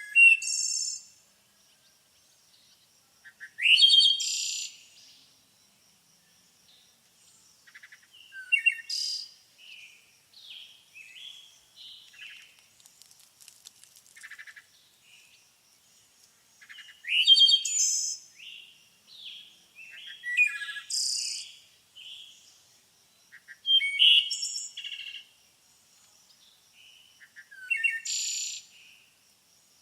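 Songbird singing: loud, quick phrases of sliding whistles and trills about every three to four seconds, with softer chirps between them and a faint steady high-pitched tone underneath.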